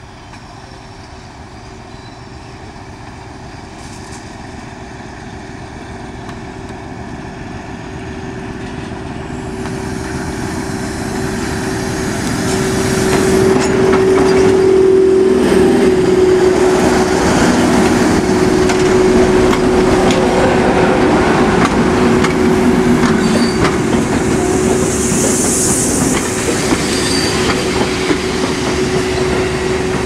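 Heritage British Rail diesel locomotives of classes 31, 37 and 73 thrashing at full power as they haul a passenger train. The sound grows steadily louder for about fourteen seconds as the train approaches, then stays loud as the locomotives pass close, with a steady engine note and the noise of wheels on the rails. There is a brief high squeal near the end.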